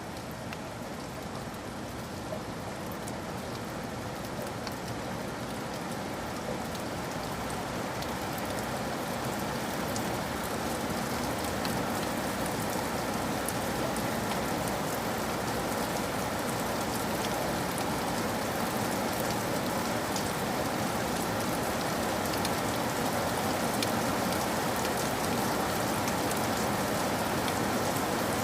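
Steady rain falling on surfaces, a dense even hiss with scattered drop ticks, growing gradually heavier.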